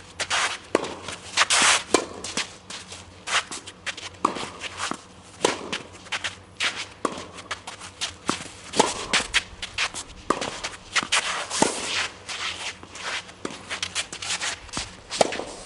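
Tennis singles play: sharp pops of the ball off rackets and court, coming every second or so, with players' footsteps scuffing on the court.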